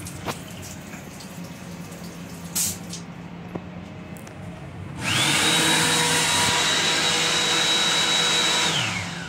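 Built-in hand dryer in an M7 railcar's lavatory sink console. About five seconds in it starts up with a rising motor whine, blows loudly and steadily for about four seconds, then winds down with a falling whine.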